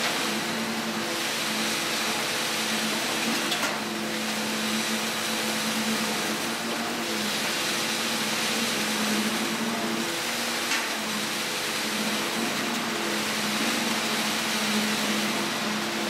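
A vehicle running steadily: a droning hum with a few pitched tones that waver slightly over an even hiss, and a couple of faint clicks, one about four seconds in and one about eleven seconds in.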